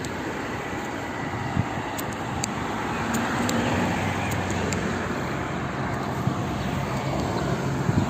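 Motor vehicle traffic: a steady rush of noise with a low engine hum that grows stronger in the second half.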